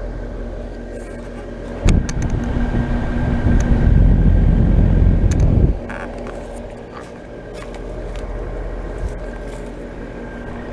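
2014 5-ton York Affinity heat pump outdoor unit running in cool mode: steady hum of the compressor and condenser fan. From about two to six seconds in, a stretch of louder low rushing air buffets the microphone.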